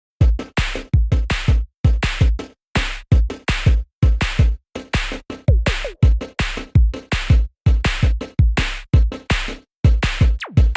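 Electronic background music with a fast drum-machine beat and deep bass.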